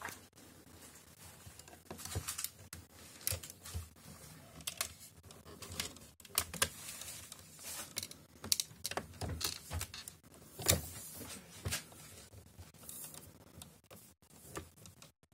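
Cat washing itself: irregular clicks and rasps of its tongue licking its fur.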